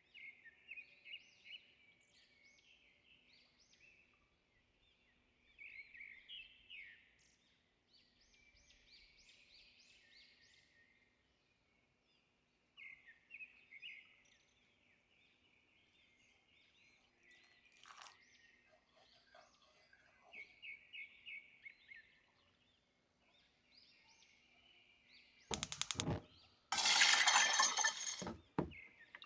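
Small birds chirping in repeated short phrases. Near the end a loud clattering, clinking burst lasts a few seconds.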